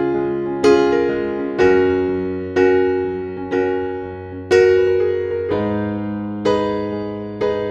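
Background music: slow, gentle piano, a note or chord struck about once a second and left to fade before the next.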